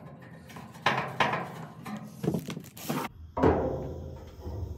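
Pipe nipple and tongue-and-groove pliers knocking and clicking against the heater's metal, about five sharp irregular knocks, as the nipple is threaded into the gas valve and gripped.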